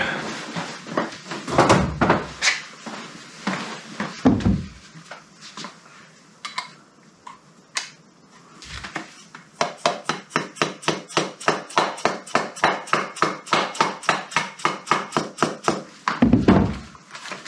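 Handling knocks and a couple of thumps. Then, from about halfway, a long even run of light taps, about four a second, as a small mallet starts new needle roller bearings into a classic Mini's front top suspension arm, with a heavier thump near the end. The tapping is kept gentle, since hammering the bearings in can damage their ends so the rollers don't turn properly.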